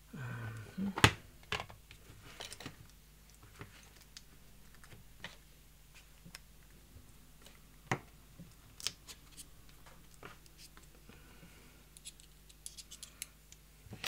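Small metal tools and lock parts being handled on a desk: scattered clicks and knocks as a screwdriver bit set is opened and a bit is fitted to a driver. There is one sharp knock about a second in and a quick run of small clicks near the end.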